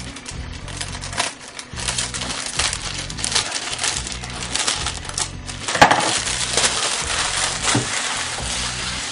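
Thin plastic sheet crinkling and crackling in irregular bursts as it is wrapped around floral foam, with a stronger crackle about six seconds in, over background music.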